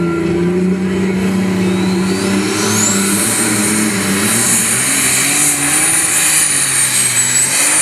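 Modified pulling tractor's engine running hard under load as it hauls a weight-transfer sled, with a high whine that climbs in pitch over the first three seconds and then holds.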